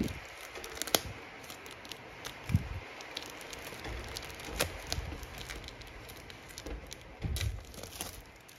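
Clear plastic shrink wrap crinkling and crackling as it is peeled off a boxed book set, with sharp crackles throughout and a few soft thuds from handling the box.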